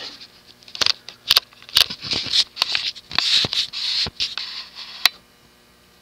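Handling noise: a string of sharp clicks and short scratchy rustles, ending with a last click about five seconds in.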